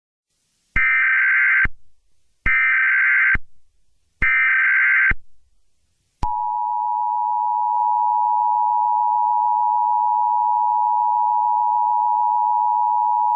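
Emergency Alert System tones: three short bursts of SAME digital header data, about a second each, then the steady two-tone EAS attention signal, which starts about six seconds in.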